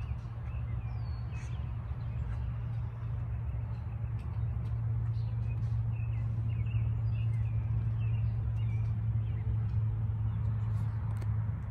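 Small birds chirping off and on over a steady low rumble.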